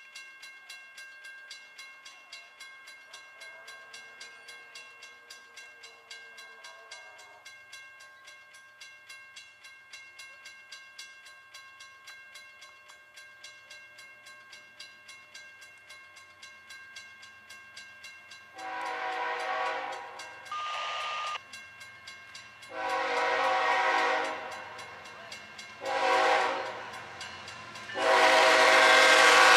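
Grade-crossing warning bell ringing steadily at about two to three strokes a second. From about two-thirds of the way in, the approaching CSX freight's lead locomotive, an ES44AH, sounds its horn for the crossing in several long and short blasts, each louder as it nears; the last, longest blast is the loudest.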